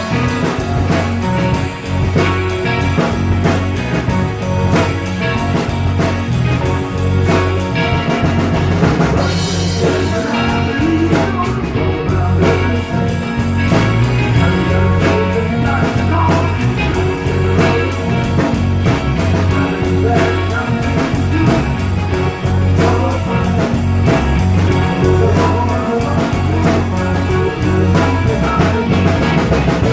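Rock band playing, with the drum kit keeping a steady beat.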